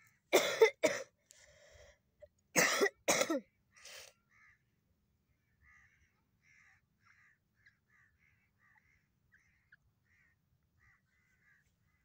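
Francolin (teetar) giving two loud, harsh calls in the first few seconds, each made of two quick parts, then a softer call about four seconds in. Faint soft chirping notes follow.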